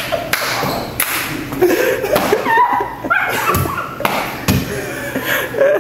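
A woman's voice rising and falling without clear words, among a scatter of sharp thumps and taps.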